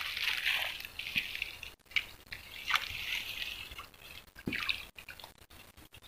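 Small splashes and sloshing of water, coming and going, as a live-frog bait on a long fishing pole's line is jerked along the surface of a weedy swamp pool to draw a strike from snakehead.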